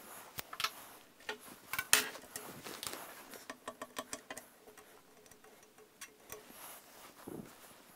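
Handling sounds on a workbench: a run of light, irregular clicks and ticks, the loudest about two seconds in, as a metal straightedge is lifted off a painted steel safe door panel and small strips of fine-line masking tape are pressed and picked at.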